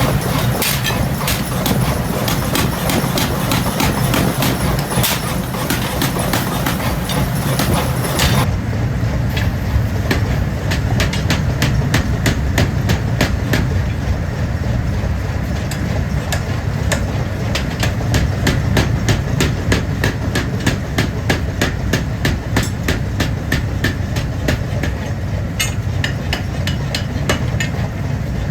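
Steady, rapid hammer blows on forged steel, several a second, over a continuous low rumble; the sound changes abruptly about eight seconds in and the strikes carry on.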